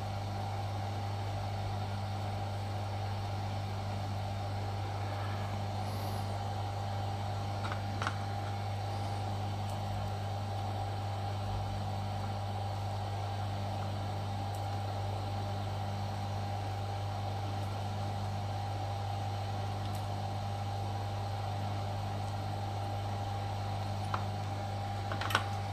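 Steady electrical hum and fan whir from the bench equipment while SMD pads are soldered, with a few faint ticks.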